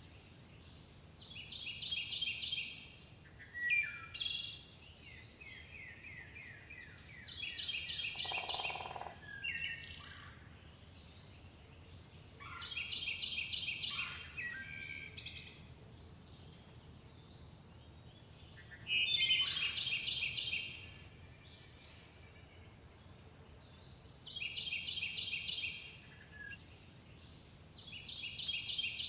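Songbirds singing in a dawn chorus: fast trilled song phrases of a second or two, repeated every five or six seconds, with short chirps in between. A thin steady high tone runs underneath.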